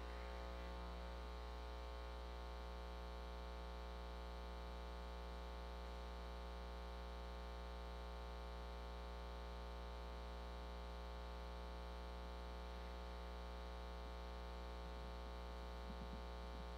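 Steady low electrical hum with a buzz of overtones from a sound system, unchanging throughout. The tail of applause dies away in the first second.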